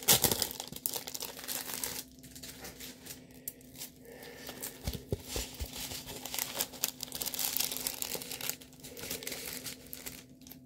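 Plastic packaging and a rolled diamond painting canvas crinkling and rustling as they are handled and unfolded, loudest at the start, easing off for a couple of seconds, then crinkling again, with a few soft knocks about five seconds in.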